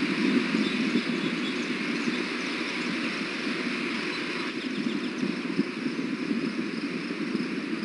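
Steady outdoor background noise: a constant hiss and low rumble with no distinct events.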